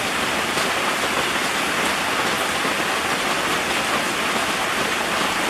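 Rain falling steadily on a fabric tent canopy, an even hiss with no breaks.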